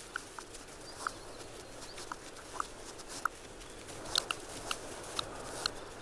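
Male buff-breasted sandpiper giving quiet clicking calls during his wing-raising courtship display: short dry clicks at irregular intervals, about a dozen, with a quick run of three about two-thirds of the way through.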